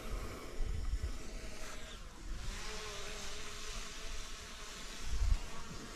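Small quadcopter drone buzzing steadily overhead, its propellers making a high insect-like hum. Low rumbles on the microphone come about a second in and again near the end.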